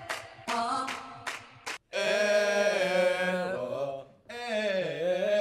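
Male voices singing a song a cappella, without accompaniment: a few short sung phrases, then long held notes that slide in pitch.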